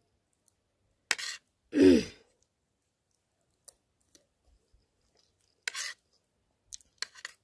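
A woman clears her throat once, a short sound falling in pitch about two seconds in. A metal spoon scrapes briefly across her plate later, with a few small clicks near the end.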